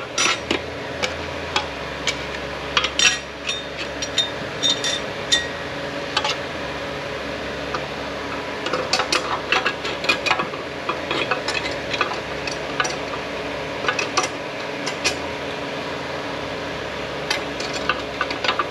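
Steel clutch plates of an 8F40 automatic transmission clinking as they are set one by one onto the clutch hub: irregular light metallic clicks and clinks over a steady background hum.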